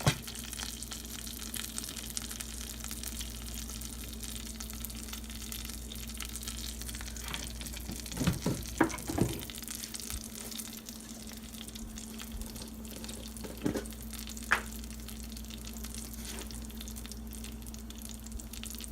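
Tempering spices, mustard seeds among them, sizzling steadily in hot coconut oil in a pan. A few sharp clicks and knocks come about halfway through and twice more a little later.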